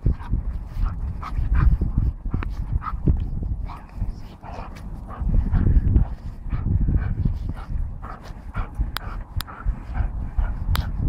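German Shepherd giving repeated short, excited whines and yips while it tugs and jumps. A heavy low rumble runs underneath, and a few sharp clicks come near the end.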